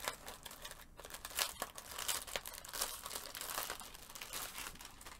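Thin plastic packaging crinkling and rustling as it is pulled open and an item is slid out of it, a run of irregular crackles.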